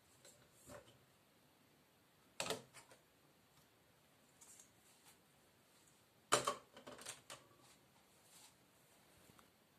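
Hard plastic toy-castle pieces clicking and knocking together as conical roofs are fitted onto the castle towers: two sharper knocks, about two and a half and six seconds in, with lighter clicks around them.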